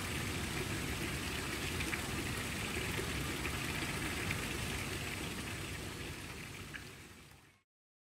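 Steady hiss of water noise, fading out about seven seconds in.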